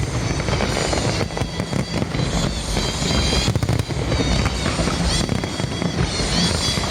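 Fireworks bursting and crackling in a dense, continuous barrage, with music playing underneath.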